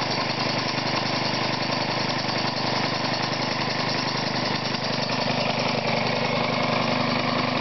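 Small Briggs & Stratton lawnmower engine running steadily, belt-driving a second Briggs & Stratton engine converted into a single-cylinder air compressor that is pumping air into a tank. Both run at a constant speed under the load of a tank near 20 psi.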